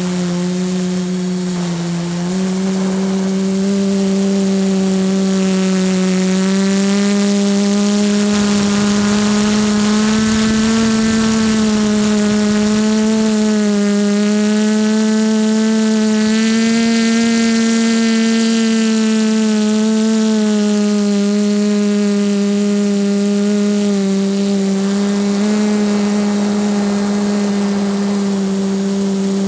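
TBS Discovery quadcopter's electric motors and propellers running in flight, a steady buzzing hum that drifts up and down in pitch as the throttle changes, stepping up about two seconds in.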